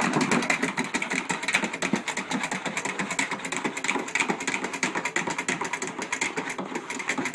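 Dog pawing rapidly at a drum: a fast, continuous clattering rattle of many taps a second.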